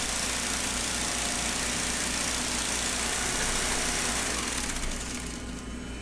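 Honda GC190 single-cylinder engine on a log splitter running steadily, then shut off about five seconds in, its sound dying away to a low background hum.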